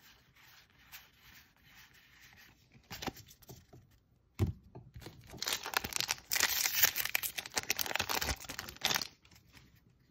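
A Magic: The Gathering booster pack's foil wrapper being torn open and crinkled, a dense crackle lasting about three and a half seconds from past the middle. Before it come faint handling of a stack of cards and a single knock about four seconds in.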